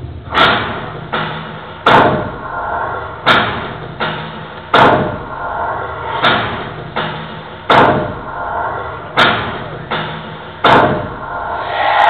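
Slow, heavy drum beat with a reverberant boom: a strong stroke about every second and a half, with lighter strokes between some of them, over a faint sustained drone.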